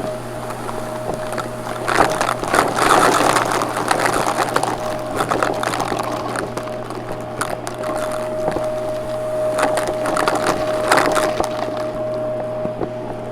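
Vacuum cleaner running: a steady motor hum with a whine that comes and goes, under a dense stream of crackles and clicks from debris being sucked up.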